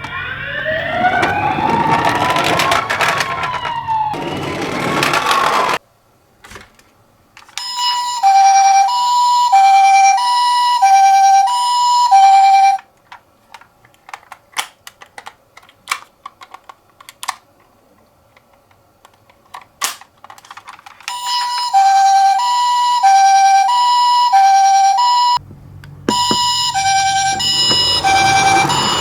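Toy ambulance's electronic siren: first a wail that sweeps up and down, then the two-tone hi-lo ambulance siren swapping between two notes, in two spells with clicks and quiet between. A low rumble of the toy's wheels rolling runs under the wail near the start and again near the end.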